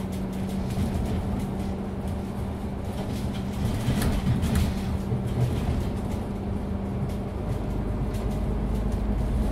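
Isuzu Citiport 18 articulated city bus with a ZF EcoLife automatic gearbox under way, its diesel drivetrain running with a steady hum. There are a few rattles about four seconds in, and it grows louder near the end.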